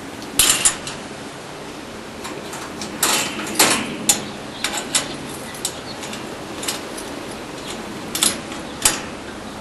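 Wire-mesh cage door being shut and its metal hasp fastened with a padlock: a scattering of sharp metallic clanks and clicks, bunched about half a second in, around three to four seconds in, and again near the end.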